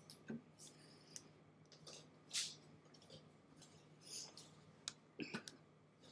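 Near silence over a low steady hum, broken by a few faint scattered clicks, a brief hiss about two seconds in and a small cluster of clicks near the end.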